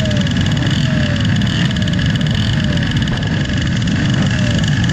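Several small pit bike engines idling together at the starting gate, with short throttle blips whose revs fall away again every second or so.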